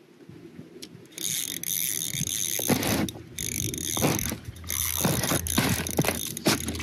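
Small spinning reel on an ice-fishing rod being cranked to reel in a hooked trout, a continuous mechanical clicking that starts about a second in.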